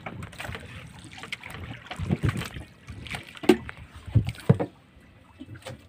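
Fishing net and rope being hauled in by hand over the side of a small wooden outrigger boat: irregular knocks and rustles against the hull, quieter near the end.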